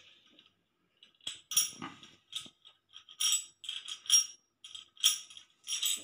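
Metal parts of a new chrome thermostatic shower knob clinking and jingling against each other as they are handled, a run of short, bright clinks starting about a second in.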